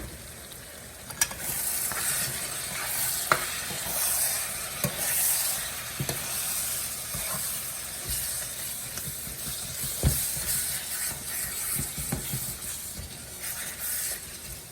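Ground meat and spices sizzling in oil in a wok while a utensil stirs them, with scattered clicks and knocks of the utensil against the pan.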